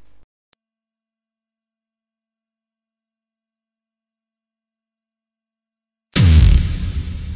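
Electronic sound effect: a single very high-pitched pure tone, like ear-ringing, held steady for about five and a half seconds. It cuts off suddenly into a loud, deep boom that rings down.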